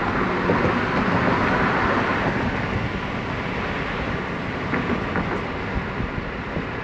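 Steady road and tyre noise with engine hum, heard from inside the cabin of a car driving along.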